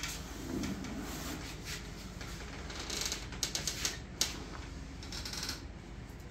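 Handling noise from clothing rustling and a body shifting on a padded treatment table, with a quick run of small clicks and taps and one sharp click about four seconds in.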